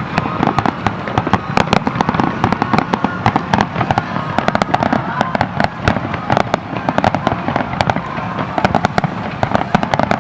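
Fireworks display: a dense, continuous barrage of aerial shell bursts and crackling, many sharp bangs a second with a rumbling wash underneath.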